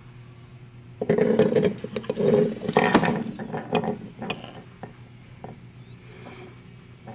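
Clattering and sharp clicks of plastic and metal camera parts being handled and pried apart by hand, loudest from about one to four seconds in, then a few scattered clicks.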